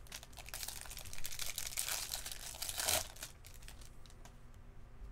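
A baseball card pack's wrapper being torn open and crinkled: a dense crackle that is loudest in the middle and dies away after about three seconds, leaving a few light clicks.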